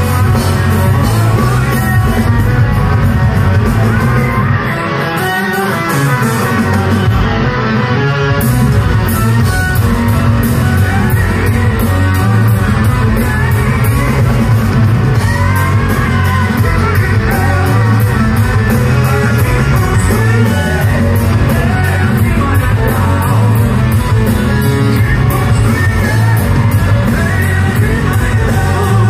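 A hard rock band playing live: electric guitars, bass and drum kit with a male singer, loud and recorded from within the crowd.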